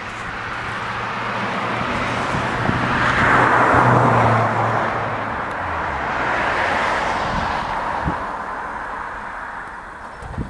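Road traffic passing: tyre and engine noise swells to a peak about three to four seconds in, eases, then swells again around seven seconds in as another vehicle goes by. A low engine hum runs under the first half.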